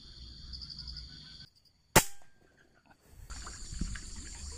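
A single sharp crack of a PCP air rifle shot about two seconds in, with a brief ringing tail. Insects chirring before and after it.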